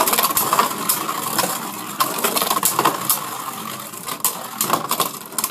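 Two Beyblade Burst tops, Z Achilles and Wonder Valtryek, spinning and grinding across the plastic Rail Rush stadium floor. Frequent sharp clacks mark their collisions and hits against the stadium walls.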